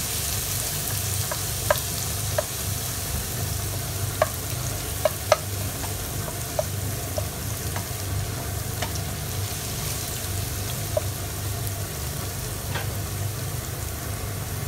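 Minced garlic sizzling steadily in hot cooking oil as it fries toward golden brown, stirred with a wooden spatula. About a dozen short sharp clicks and pops are scattered through it, the loudest a few seconds in.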